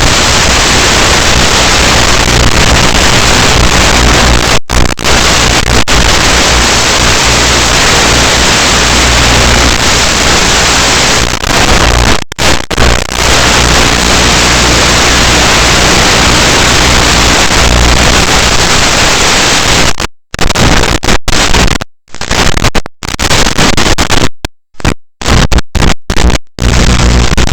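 Loud, steady static hiss with a low hum underneath, the noise carried on the audio channel of an analog FPV drone video feed. It cuts out briefly a couple of times, then repeatedly in the last several seconds.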